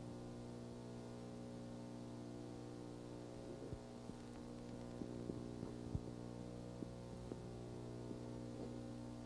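Low, steady electrical hum with several faint clicks in the middle stretch.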